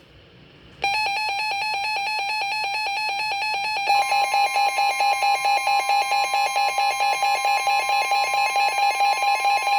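Weather alert radios going into alarm for a severe thunderstorm warning. A rapidly pulsing electronic beep starts about a second in. A few seconds later it grows louder and beats in quick pulses, and a steady higher tone runs under it until just before the end.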